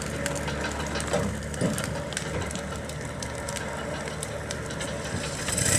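An engine running steadily with scattered sharp crackles over it; near the end a louder engine comes up sharply.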